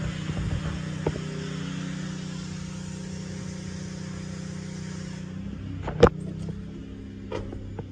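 1990 GMC Topkick fire truck's engine idling steadily, with a sharp knock about six seconds in and a couple of lighter clicks near the end.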